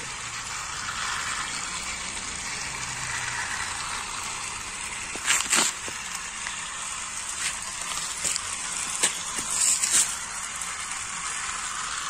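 Battery-powered toy trains running on plastic track: a steady whirring rattle, with a few sharp clicks about halfway through and again a little later.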